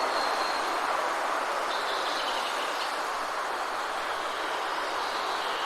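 Faint, high, thin bird calls, one at the start and another about two seconds in, over a steady rushing background noise.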